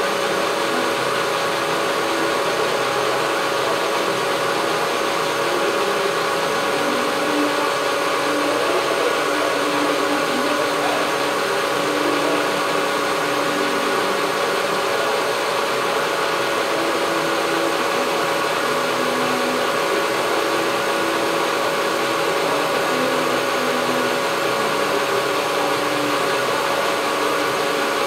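Whacheon WL460 centre lathe running under power, its chuck spinning as the carriage feeds along for a test cut: a steady whir with a constant whine.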